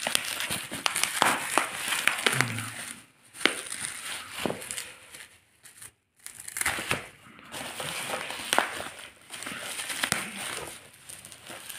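Bubble wrap being crinkled and pulled off a boxed product by hand: irregular crackling rustles with many small clicks, pausing briefly twice.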